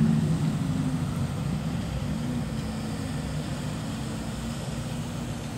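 Classic cars driving slowly past. A late-1950s Ford sedan's low engine note is loudest at first and fades as it moves away, and a 1970s Ford pickup rolls by after it with a quieter low rumble.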